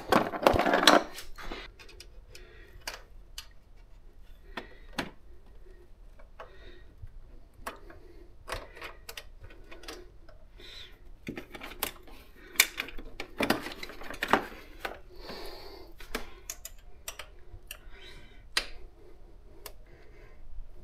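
Scattered metallic clicks and clinks of a wrench working the valve adjuster lock nuts on a GY6-type scooter engine as they are snugged tight, with a few longer stretches of handling noise.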